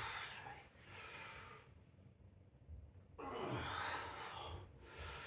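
A man breathing hard under the strain of a 200-pound dumbbell press (a 100-pound dumbbell in each hand), a series of heavy, forceful breaths. About three seconds in comes a longer strained exhale with a groan that falls in pitch.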